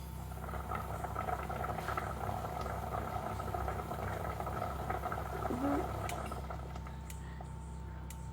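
Food bubbling in a hot pot, swelling for a few seconds and fading near the end, over a steady low electrical hum.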